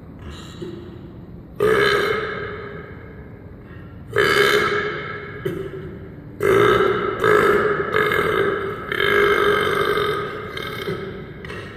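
A person burping deliberately: about five long, loud, pitched belches in a row, each starting abruptly and trailing off, echoing in the room.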